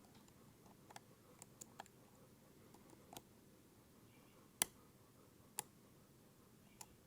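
Faint, scattered little clicks of lock picks working the wafers of an Illinois Duo wafer cam lock, with two sharper clicks about a second apart past the middle. A click like these marks something letting go inside the lock, an unwanted drop of wafers already set.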